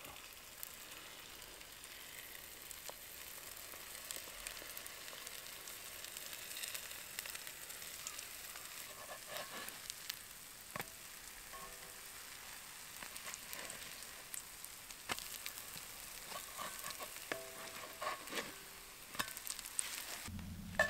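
Pancakes frying in oil in a cast-iron skillet over campfire coals, a steady sizzle with scattered small pops and clicks and a few brief scrapes of a carved wooden spatula in the pan.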